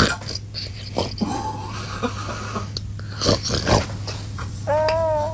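A dog making short snorts and snuffly breaths, then a brief high whine near the end.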